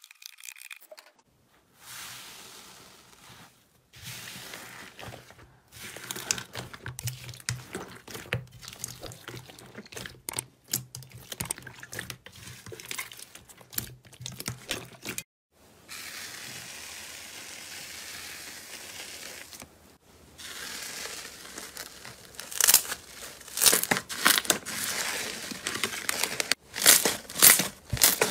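Slime being cut with a blade, then squeezed and kneaded by hand, giving a dense, irregular run of crackling pops and squelches. Near the end the pops come louder and sharper as another slime is pressed between the fingers.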